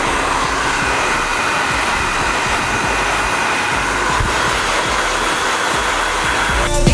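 Handheld hair dryer blowing steadily, a continuous rush of air with a faint whine, drying short hair. Music cuts in at the very end.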